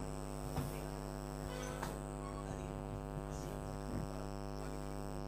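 Steady electrical mains hum in the microphone feed, with a few faint knocks.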